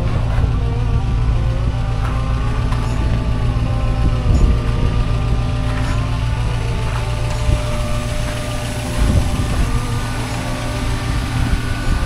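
Engine of a 1985 Toyota pickup rock crawler running steadily at idle, heard up close as a low, even sound.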